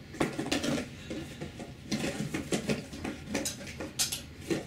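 Spent airsoft shotgun shells and their box clattering as they are handled and gathered up by hand: an irregular run of light knocks and rattles with a few sharper clicks.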